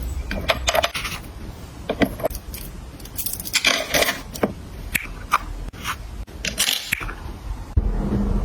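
Household items being handled and set down while organizing: a run of sharp clicks and taps, with a couple of longer scrapes about halfway through and near the end.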